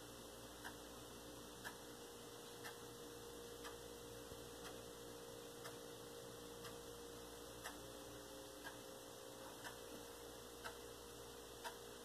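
Faint room tone: a clock ticking evenly about once a second over a low steady hum.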